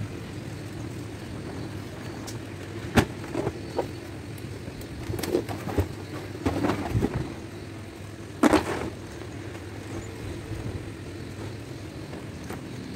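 Hands handling a hard-shell suitcase: scattered clicks, knocks and rustles of the plastic shell, zipper tape and fabric lining, the loudest a knock with a rustle near the middle, over a steady low hum.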